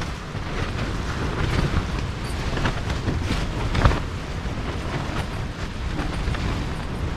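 Gale-force wind buffeting a tent from inside: a steady rush and rumble with the fabric flapping and snapping in gusts every second or so, the loudest snap about four seconds in.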